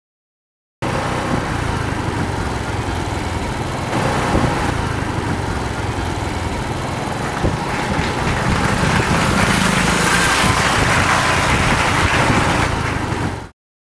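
A road vehicle's engine running steadily on the move, with steady road and wind noise. It starts suddenly about a second in, grows a little louder partway through, and cuts off near the end.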